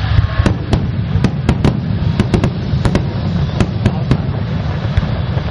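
Aerial fireworks going off in a rapid, irregular series of sharp cracks, about a dozen in a few seconds, over a steady low rumble.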